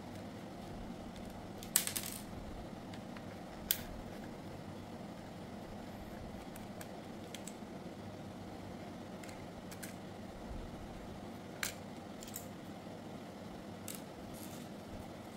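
Scattered sharp clicks and light metallic clinks of small parts and tools being handled as a hair clipper is taken apart, over faint steady background noise. The loudest clicks fall about two and four seconds in, with a few more near the end.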